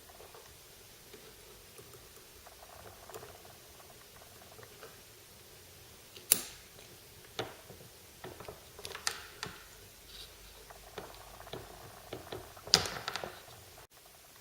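Light handling clicks and knocks of hard plastic parts being moved about, sparse and irregular. The sharpest knocks come about six seconds in and again near the end.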